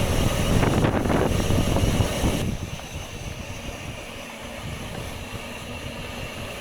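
Rushing wind noise on the microphone while cycling, loud for about the first two and a half seconds, then easing to a steadier, quieter rush.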